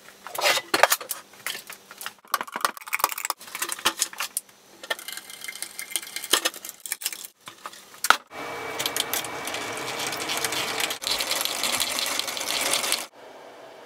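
Hand-cranked drill boring by hand, with irregular clicking and scraping as the bit goes down into a tabletop. From about eight seconds in it turns to a steadier grinding as the bit bores into the hub of a metal pulley.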